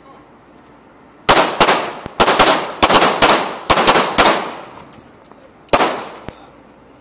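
Pistol shots fired in quick, uneven succession: about nine sharp cracks between one and four seconds in, then a single shot near six seconds, each trailing off briefly.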